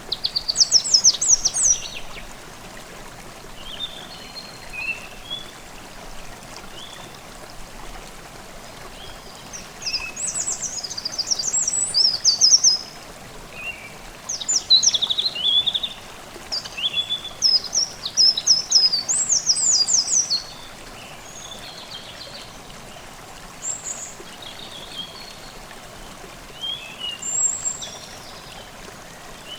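Forest stream babbling steadily, with songbirds singing bright, rapid trilling phrases over it: a burst at the start, a long busy run from about ten to twenty seconds in, and scattered softer chirps after.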